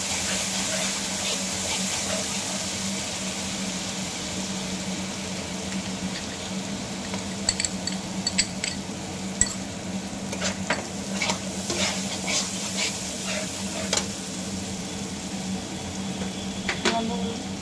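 Spice paste sizzling in hot oil in a non-stick kadai while a spatula stirs and scrapes it: the masala being fried down. A run of clicks and scrapes of the spatula against the pan comes between about seven and fourteen seconds in, over a steady low hum.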